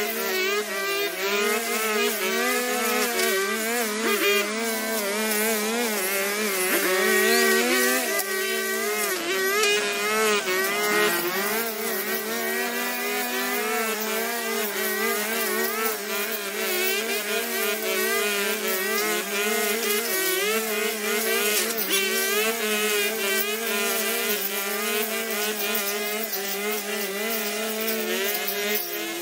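Petrol brush cutters running steadily as they cut thick overgrown grass, the engine pitch wavering and dipping as the cutting heads take load.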